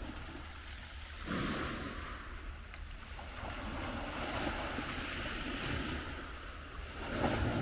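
Small waves washing onto a pebble beach, with wind rumbling on the microphone.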